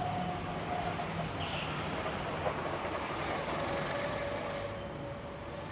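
Go-karts running on an outdoor track, heard as a steady engine hum with a thin engine whine that drifts slowly lower in pitch.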